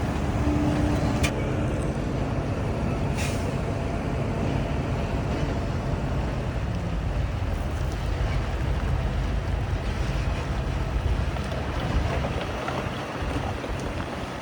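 Heavy diesel earthmoving machinery running with a steady low engine rumble, and a short burst of air hiss about three seconds in.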